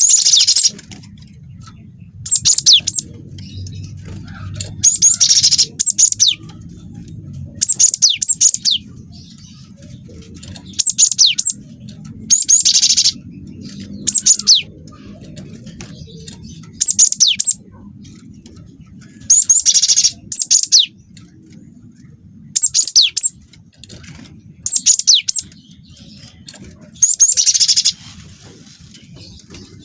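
Cinereous tit (gelatik batu) singing: short phrases of sharp, high whistled notes and fast trills, repeated every two to three seconds, over a faint low background hum.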